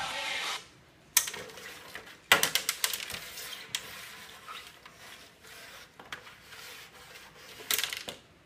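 Plastic toy hockey players and puck clicking and clattering on a Playmobil tabletop rink as they are pushed and shot by hand: a sharp knock about a second in, a quick run of clicks a little later, and another cluster near the end.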